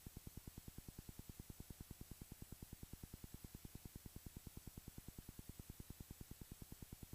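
Very faint, steady low drone of a Cessna 172's engine and propeller, pulsing evenly about ten times a second, as picked up through the cockpit audio feed at a very low level.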